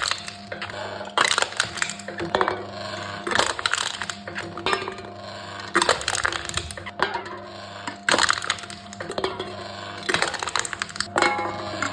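Aluminium drink cans being crushed one after another by a machine: a crinkling, crackling crunch of metal about every two seconds, over a steady low hum.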